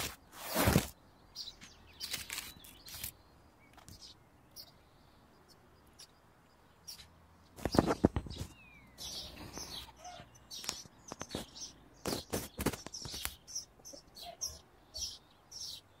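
Tomato leaves and stems rustling and brushing against the microphone in short irregular bursts as the plants are pushed aside. The loudest cluster comes about eight seconds in.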